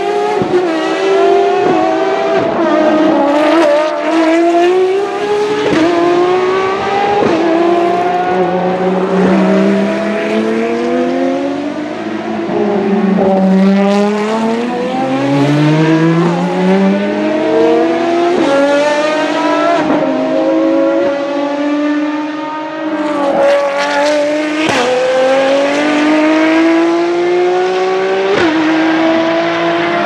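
Ferrari XX-programme track cars' V12 engines accelerating hard, the pitch climbing through each gear and dropping sharply at every upshift. Several cars follow one another, so the runs of upshifts overlap.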